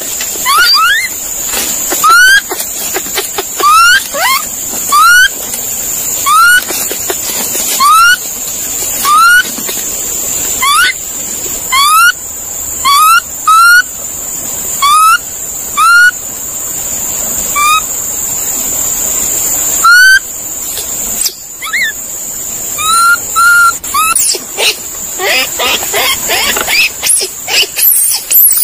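Monkey calls: short whistled cries that sweep upward in pitch, repeated about once a second, then coming faster and more jumbled near the end, over a steady high-pitched whine.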